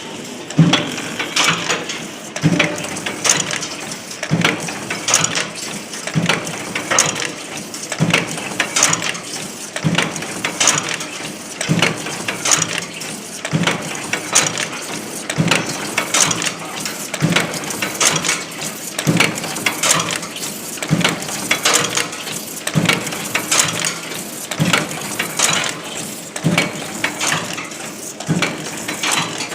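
FEDA cold heading (cold forging) machine running in its automatic cycle, with a heavy stroke about every two seconds and metallic clicking and rattling between strokes.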